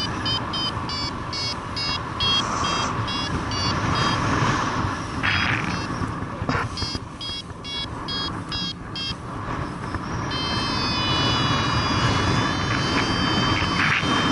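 A paragliding altimeter-variometer beeping in short pitched pulses, about three or four a second, in two runs with a pause between, then a long steady tone from about ten seconds in. Wind rushes across the microphone in flight under it all.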